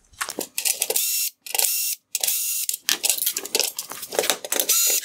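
Cordless drill-driver running in a series of short bursts, about half a second to a second each with brief pauses, as it backs out T20 screws from the headlight's plastic bezel.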